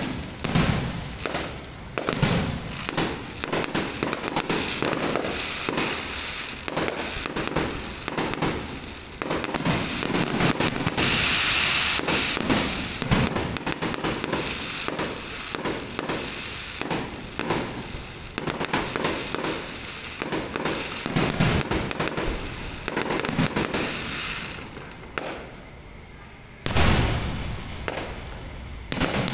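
Aerial fireworks display: a continual run of shell bursts and booms with crackling. There is a denser, hissing crackle about eleven seconds in, a short lull, and a loud bang near the end.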